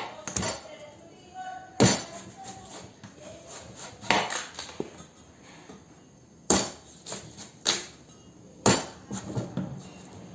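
A watermelon being chopped with a knife: about six sharp knocks at irregular intervals.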